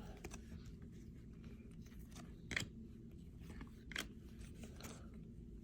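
Baseball cards being handled and flipped through, faint, with a few light clicks, the clearest about two and a half and four seconds in.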